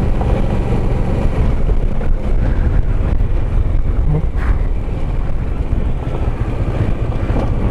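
Kawasaki Versys 650's parallel-twin engine running at a steady cruise, mixed with heavy wind and road noise on the moving motorcycle.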